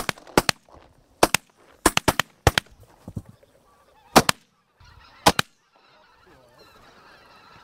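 A volley of shotgun blasts from several hunters firing at geese, about a dozen sharp shots in quick, uneven succession, some in close pairs, ending about five and a half seconds in. Faint goose honking follows.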